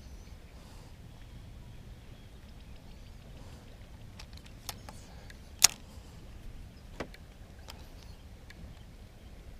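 A few sharp clicks and knocks over a low steady rumble. The loudest click comes about five and a half seconds in, with smaller ones shortly before and after.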